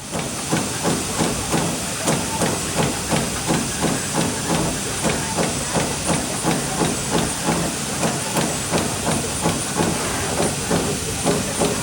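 Trumpf TruPunch 1000 CNC turret punch running, with punch strokes in an even rhythm of about two a second over a steady hiss.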